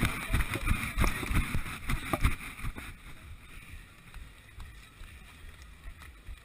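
Running footsteps jolting a body-worn action camera, thumping about two to three times a second over steady background noise. The thumps stop about three seconds in, leaving a quieter rustle.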